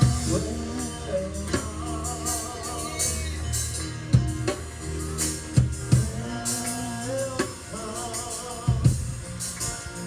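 Gospel praise-and-worship song: a sung melody with vibrato over a drum kit and deep bass, with drum hits at a steady beat.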